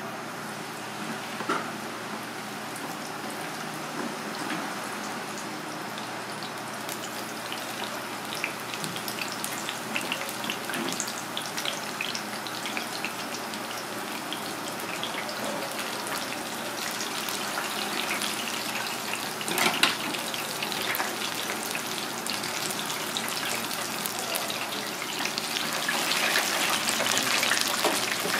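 Battered shredded tempura frying in hot oil in a deep fryer: a steady sizzle with scattered pops and crackles, growing louder near the end.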